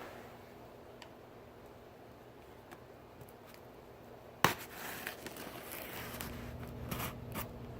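Cardboard box being handled and opened, with a sharp snap about halfway through followed by scattered clicks and rustling, over a faint steady hum.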